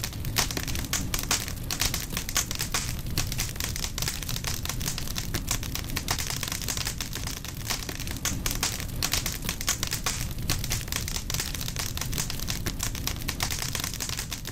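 A fire crackling: a dense, steady run of small snaps and pops over a continuous hiss.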